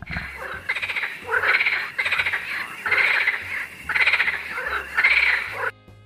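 A run of short, rapidly pulsed animal calls, repeating more than once a second, cutting off abruptly near the end.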